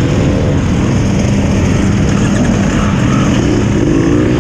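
Enduro dirt bike engines running at low speed, the rider's own bike close by and other bikes around it. The pitch rises and falls briefly toward the end.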